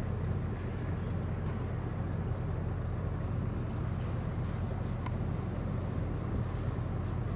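Steady low drone of ships' diesel engines idling in the harbour, an even hum with no change in pitch.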